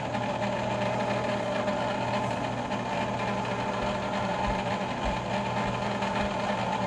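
Cuisinart ICE-30R electric ice cream maker running, its motor giving a steady hum as it turns the frozen bowl and churns custard into ice cream.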